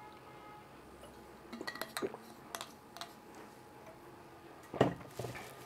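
A few light clicks and clinks, then a louder knock about five seconds in, with a smaller one just after.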